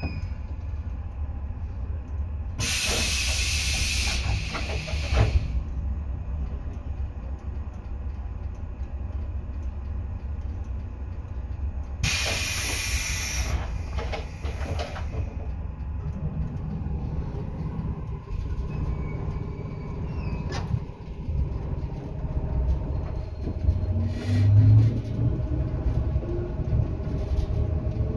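Interior sound of a 115-series electric multiple unit: a steady low rumble broken twice by loud bursts of air hiss, each lasting a second or two. Near the end a whine rises steadily in pitch as the traction motors speed up.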